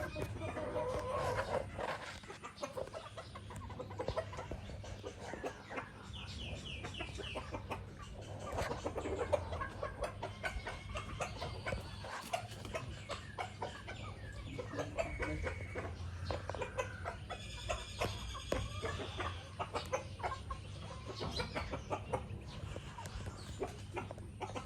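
Domestic chickens, a rooster and a hen, clucking softly while they peck at feed, with many quick sharp taps of beaks on the feed and ground.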